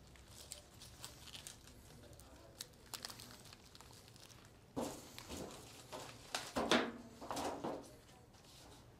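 Rustling and crinkling of fresh flower stems and leaves, alstroemeria and iris, as a large hand-held bouquet is handled and arranged. Faint scattered rustles at first, then louder rustling from about five seconds in as stems are pushed in and gathered.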